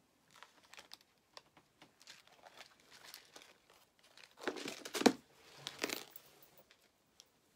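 Rustling and light clicking of small plastic parts being sorted by hand in a clear plastic compartment organizer box, with a louder burst of handling clicks about five seconds in.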